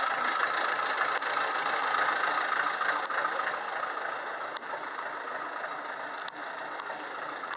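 Komatsu PC20 mini excavator's diesel engine running steadily, a little quieter after about three seconds, with a few faint knocks.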